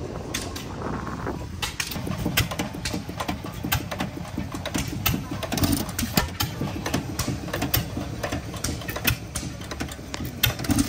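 Antique stationary engine running: a low rumble with sharp, irregular pops a few times a second.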